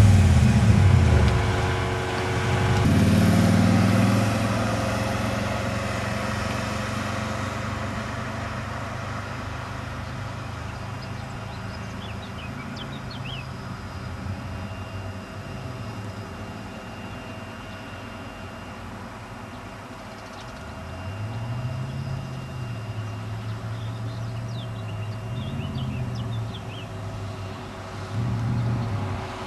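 BMW E38 740i's V8 engine being revved and left to idle: it falls back from a rev about three seconds in and settles to a steady idle, then the revs rise about two-thirds of the way through, hold, drop, and pick up again near the end.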